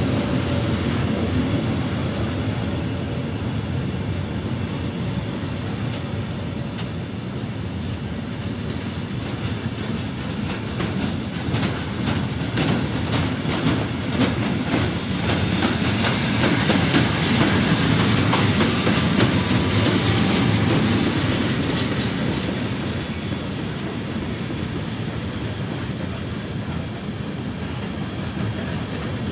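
Freight train of flat wagons loaded with rails rolling past, a steady rumble of steel wheels on track. Through the middle a run of sharp clacks comes as the wheels cross the rail joints.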